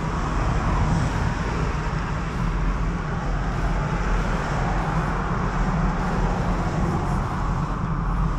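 Steady wind rush on an action camera's microphone, mixed with the low rumble of a mountain bike's tyres rolling over the trail as it is ridden.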